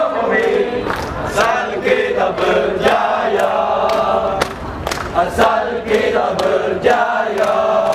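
A group of protesters chanting together in unison, with many sharp clicks mixed in.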